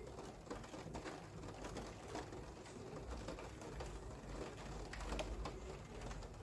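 Rain falling with many small irregular drips tapping, over a low rumble, and pigeons cooing.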